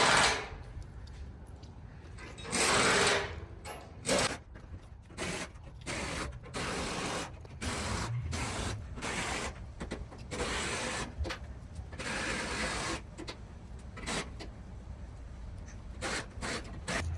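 Knife cutting meat off a hanging deer leg. It is a series of cutting strokes: two longer, louder ones in the first few seconds, then many short ones in quick succession.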